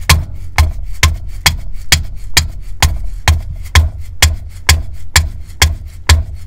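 Mallet blows on a wrench fitted to the 14 mm hex plug of a Mercedes W205 rear differential, striking steadily about twice a second to break the tight plug loose.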